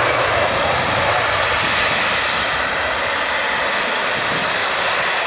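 The two rear-mounted turbofan engines of a Bombardier CRJ900 regional jet taxiing past, a steady jet rush that eases off slightly.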